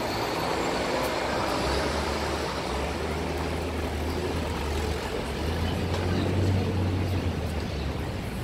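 Street traffic noise from cars, buses and trucks. A low rumble comes in about two seconds in and eases off near the end.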